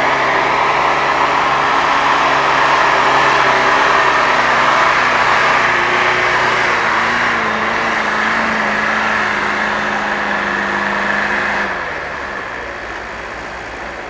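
A modified off-road 4x4's engine running hard under load in deep snow. The revs rise about halfway through and are held high, then drop back sharply near the end.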